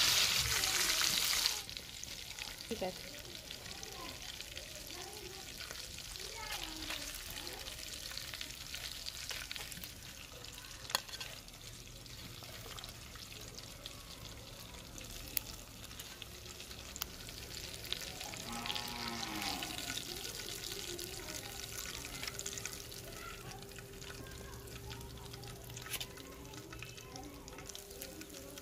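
Fish pieces sizzling in hot oil on a flat tawa griddle, loud for the first second and a half. Then the sound drops abruptly to a faint sizzle of the leftover oil, with a few light clicks.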